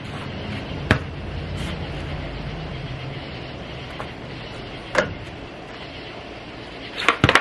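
Skateboard wheels rolling on concrete, a low steady rumble for a few seconds. Single sharp knocks come about one second and five seconds in, and a quick run of knocks near the end.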